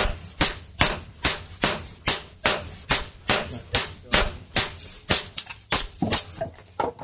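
Hand hammer striking a steel sword blade on a steel post anvil in a steady rhythm, about two and a half blows a second, each blow a sharp ringing clink. The rhythm breaks off near the end.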